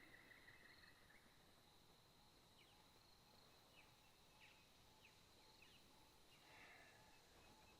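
Near silence: faint background hiss with a thin steady high whine, a faint trill that stops about a second in, and a few faint short chirps.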